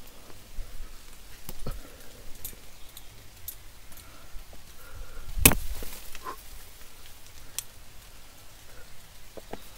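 Sparse clicks and rustles of a climber's hands and gear on the rock face, with small clinks of a quickdraw carabiner, and one sharp knock about five and a half seconds in.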